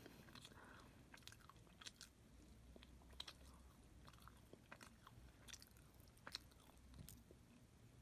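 A Maltese dog chewing and nibbling a piece of crusty baked food held in a hand: faint, irregular crunching clicks.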